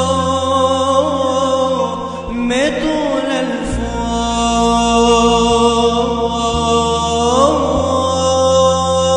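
A Syriac liturgical prayer chanted by a single voice in long, ornamented held notes, over a low sustained accompaniment that shifts pitch a few times.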